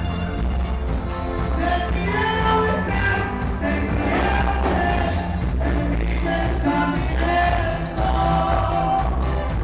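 Loud amplified band music with singing over a steady beat and heavy bass.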